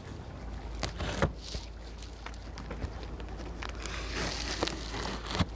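A cardboard box being handled and opened: scattered knocks and clicks with short rustles of cardboard and packing, over a steady low rumble.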